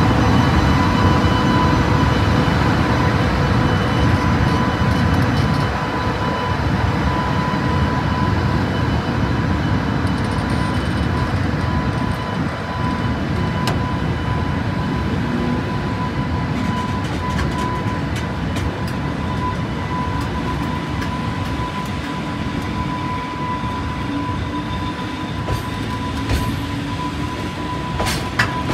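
EH500 electric locomotive's cooling blowers running, a loud steady roar with a steady high whine over it. In the last few seconds a faint low tone rises slowly in pitch, and a few sharp clicks come near the end.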